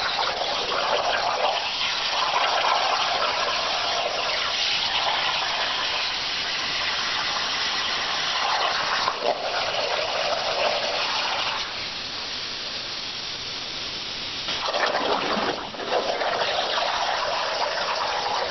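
CNC plasma cutter torch cutting 1/8-inch steel sheet over a water table, a loud continuous hiss of the arc and air jet. The level dips briefly a few times, once for a few seconds past the middle.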